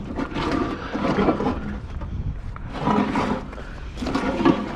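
A man grunting and straining as he heaves a heavy piece of scrap metal, with knocks and scrapes from the metal in between.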